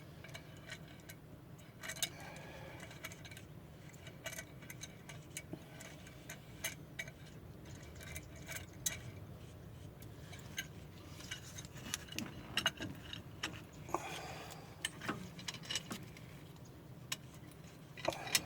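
Irregular small metallic clicks and clinks of hand tools and brake parts being handled during a pickup's brake job, over a faint steady low hum.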